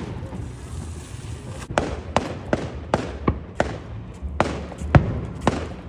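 Fireworks exploding: a quick, irregular string of sharp bangs with short echoing tails, starting after about a second and a half of quieter rumble.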